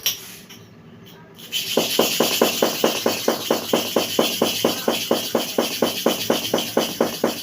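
Hair clipper blade being rubbed rapidly to and fro on a kerosene-wetted sharpening stone, a regular rasping at about five strokes a second that starts about a second and a half in.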